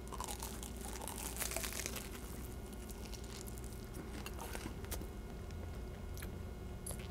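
A man biting into a toasted grilled-chicken panini near the start, then chewing it, with small crackles of the toasted bread. The sound is picked up close to the mouth by a headset microphone.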